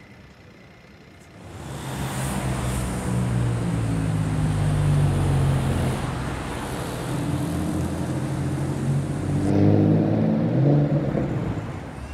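Engine of a body-kitted Porsche: about a second and a half in it comes up loudly and runs as the car pulls away, and near the end it rises in pitch as it accelerates.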